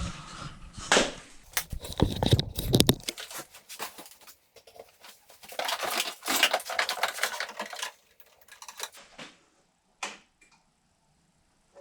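Rustling, crinkling and clicking handling noises: a run of knocks and clicks in the first few seconds, then a few seconds of crinkly rustle that stops, leaving a couple of faint clicks.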